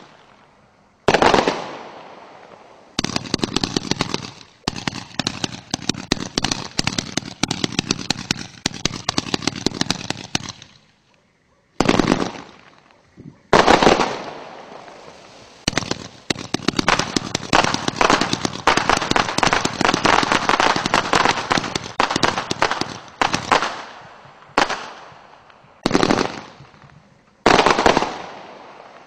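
500-gram multi-shot aerial firework cake firing: long spells of dense, rapid crackling from about 3 to 10 seconds in and again from about 14 to 23 seconds, broken by sharp reports. Near the end it fires four separate volleys about a second and a half apart, each a sudden bang that dies away.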